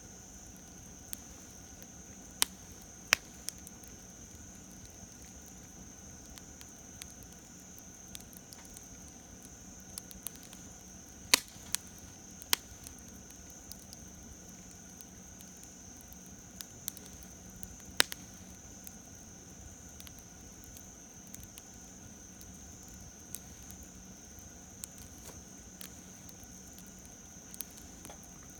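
Campfire wood burning, with irregular sharp pops and crackles every few seconds. Under it runs a steady high insect drone.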